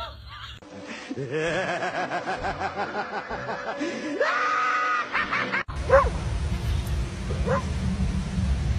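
A woman laughing helplessly in quick, rhythmic bursts that climb into a long high squeal. After a sudden cut, a steady low rumble of wind on the microphone, with a dog giving two short rising whines.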